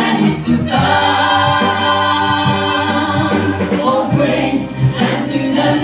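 Church choir singing a hymn in harmony, holding long notes, with a change of chord about four seconds in.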